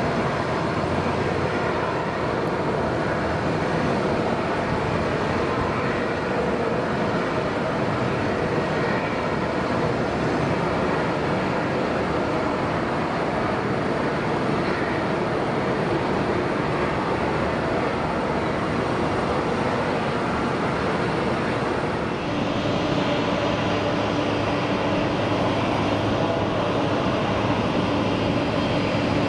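Jet airliner engines running at taxi power, a steady broad rush of engine noise across the airfield. About three quarters of the way through, the sound changes suddenly and a steady low hum joins it.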